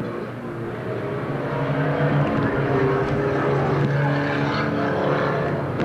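Engines of several old saloon race cars running hard as they pass. The sound grows louder over the first two seconds, then holds steady.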